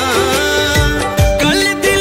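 Background music: a wavering melody with vibrato over sustained held tones and a steady drum beat of about two beats a second.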